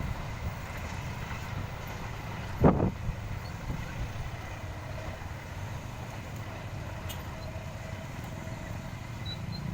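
Steady low rumble of motor vehicles running, with one loud thump a little under three seconds in.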